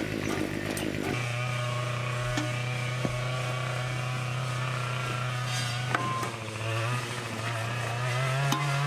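Small two-stroke engine of a brush cutter (trimmer fitted with a blade) running steadily at high speed, coming in about a second in, its pitch shifting a little near the end.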